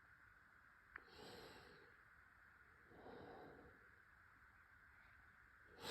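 Near silence with two faint exhalations through the nose, one about a second in and one about three seconds in, and a faint tick just before the first.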